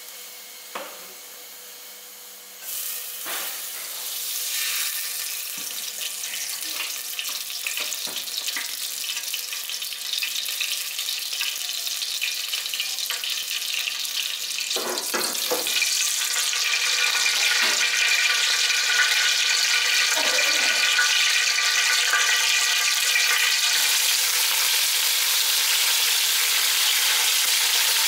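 Oil with ground black pepper sizzling and crackling in an aluminium stockpot on a gas burner, growing louder as it heats, with a few light knocks.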